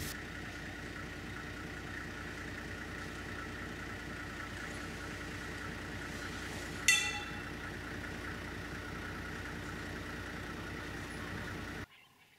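Safari vehicle engine idling steadily, with one sharp ringing clink about seven seconds in; the hum cuts off suddenly near the end.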